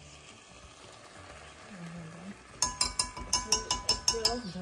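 Metal spoon tapped quickly against the rim of an enamelled pot, about nine sharp ringing clinks in under two seconds, knocking spice powder off the spoon onto the chicken.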